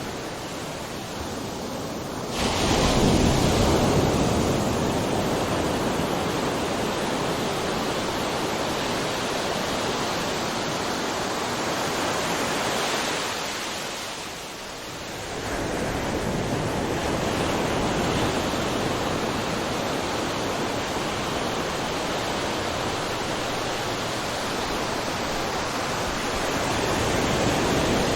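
Ocean surf crashing and washing in a continuous rushing roar. A wave breaks suddenly about two seconds in, and the surf eases off briefly around the middle before building again.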